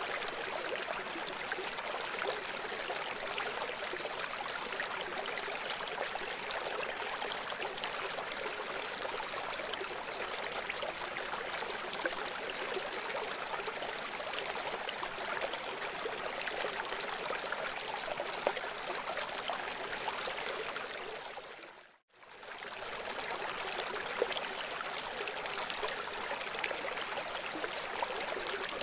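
Steady rush of running water with fine splashing. It dips to silence for a moment about three-quarters of the way through, then comes straight back the same.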